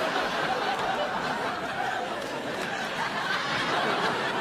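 Sitcom studio audience laughing, a sustained crowd laugh that holds steady.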